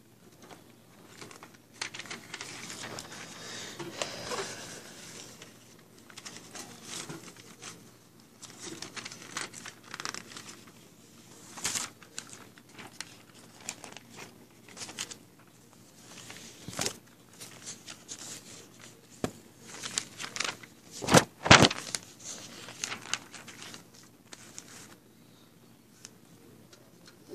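Crinkling and rustling of paper and plastic being handled, on and off, with a few sharper, louder crackles about three quarters of the way through.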